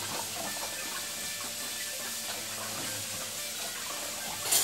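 Cold tap water running steadily over scalded stinging nettles in a plastic colander and splashing through into a basin of water below. A brief sharp sound comes near the end.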